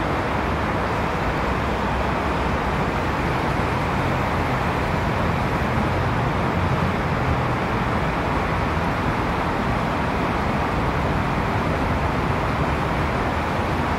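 Steady rushing noise on a rail transit station platform, unchanging in level throughout.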